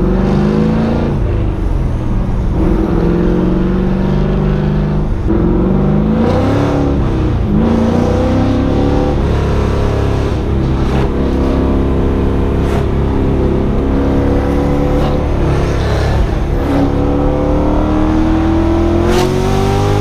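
LS1 V8 engine in a BMW E36 accelerating through the gears of its T56 manual gearbox, heard from inside the cabin. The engine note climbs, drops at each upshift, and climbs again several times; the last long pull comes near the end.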